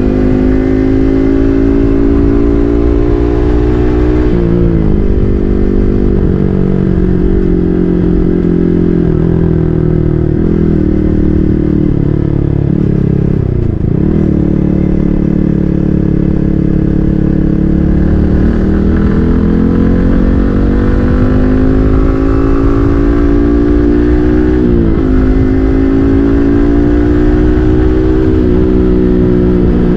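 Yamaha MT-15's single-cylinder four-stroke engine through an SC Project full-system aftermarket exhaust, ridden on the road. The note climbs under throttle and drops sharply at upshifts, about four seconds in and again near the end, with a brief dip as the throttle closes about halfway through.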